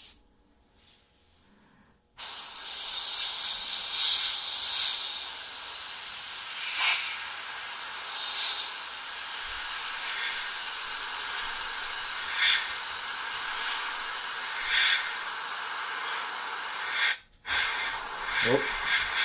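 Airbrush spraying thinned black paint: a steady hiss of air and paint starts about two seconds in, swells in short louder puffs several times as the trigger is worked, and cuts off for a moment near the end before starting again.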